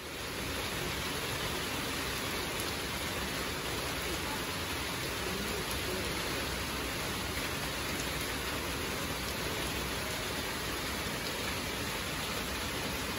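Heavy rain falling in a steady downpour, an even hiss that holds unchanged throughout.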